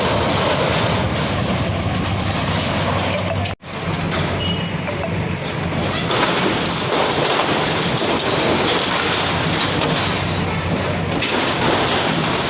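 Heavy machinery's diesel engine running steadily with a rattling clatter, cutting out for an instant about three and a half seconds in.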